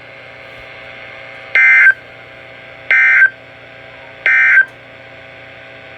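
Emergency Alert System end-of-message data tones: three short, identical bursts of warbling digital tone, about a second and a third apart, closing a severe thunderstorm warning. A faint steady hum runs underneath.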